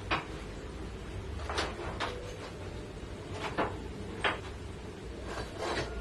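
Irregular sharp metal knocks and clanks at a workbench, about six in six seconds, some with a brief ring after them, as steel tubing and a bar are handled and struck while building a chopper bicycle frame.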